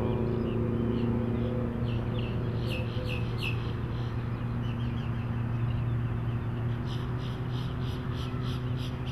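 Birds chirping in two short runs, one a few seconds in and another near the end, over the steady distant drone of a motorboat's engine: the Volvo Penta 3.0 L inboard of a Chaparral 180 SSi bowrider running out on the water.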